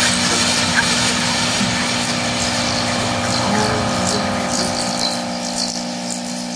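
Experimental musique concrète collage of found sound: a dense, steady wash of noise with several layered hum tones, thinning slightly at the bottom near the end.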